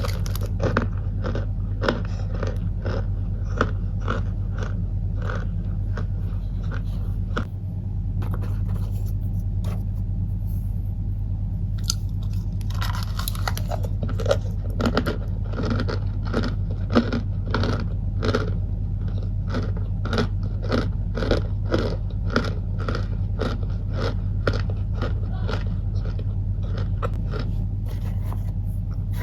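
Cornstarch crunching in a long run of short, sharp crunches, about two a second, over a steady low hum.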